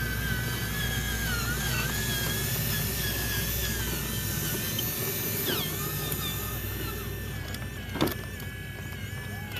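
Small electric motor and gearbox of a radio-controlled model vehicle whining, the pitch wavering and dipping as the load changes, with a sharp click about eight seconds in.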